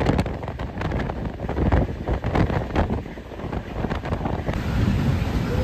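Wind buffeting the microphone in uneven gusts at the open door of a moving passenger train, over the coach's running noise.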